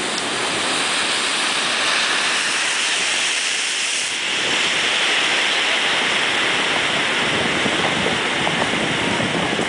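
Big ocean surf breaking and washing in, a steady rush of white water that grows deeper about four seconds in, with wind blowing across the microphone.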